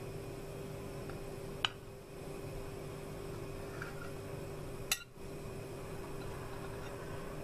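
A knife and cake server tapping against a serving plate, two short clicks about a second and a half and five seconds in, over a faint steady hum.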